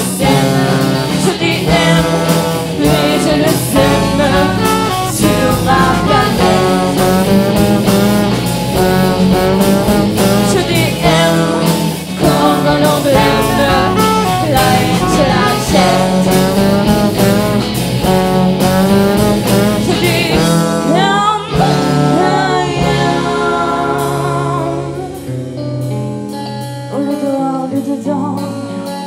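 A live band plays with a woman singing lead over electric guitar and drums. The bass drops out near the end.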